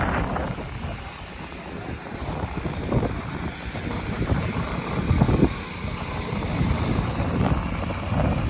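Wind buffeting the microphone in irregular gusts over a steady low rumble.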